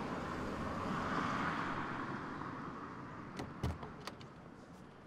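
A car passing on the street, its noise swelling about a second in and then fading. Near the end, a few sharp clicks and a low knock as the front door's handle and latch are worked and the door opens.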